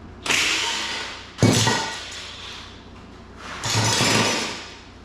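Impact wrench run in three short bursts of about a second each, backing out a bolt on a Ford 302 V8 engine.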